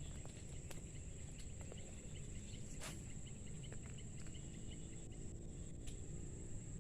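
Steady high-pitched insect buzz over a low rumble of wind on the microphone, with a few faint clicks.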